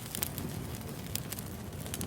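Wood fire burning, with irregular sharp crackles and pops, a few a second, over a low steady rumble.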